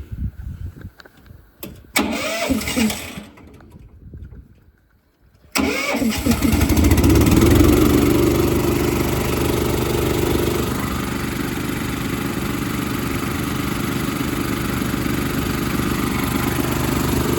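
An engine starts up about five and a half seconds in and then runs steadily. It is preceded by a few knocks and short sounds and a quiet gap.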